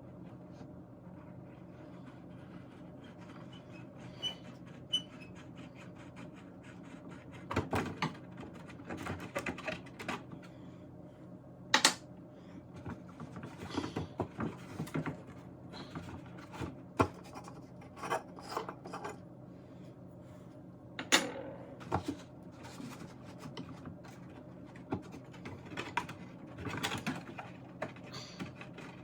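Hand-tool work on an antique radio chassis: scattered clicks, knocks and short scraping and rubbing noises of a screwdriver and parts being handled, with sharper clicks about 12 and 21 seconds in, over a steady low hum.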